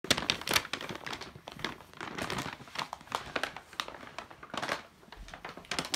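Brown paper shopping bag rustling and crinkling in irregular bursts as it is gripped by its rope handles and lifted.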